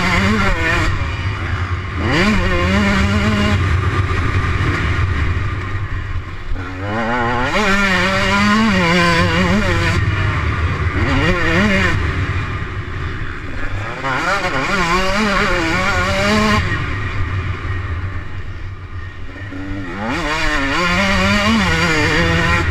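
125cc Husqvarna motocross bike's engine revving hard and falling off again and again as the rider shifts gears and rolls the throttle on and off, with a rush of wind noise underneath. The revs dip lowest near the end, then climb again.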